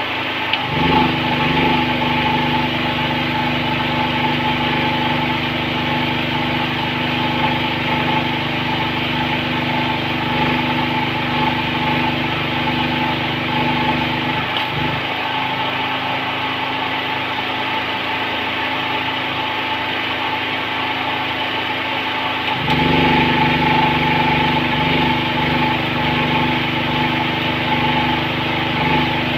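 A small engine running steadily with an even drone. Its deep part drops away about 15 seconds in and comes back louder about 23 seconds in.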